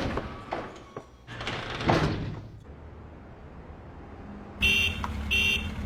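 A thud, then a brief swish. About four and a half seconds in, a vehicle engine starts and runs at a low, steady idle, with two short high-pitched tones over its start.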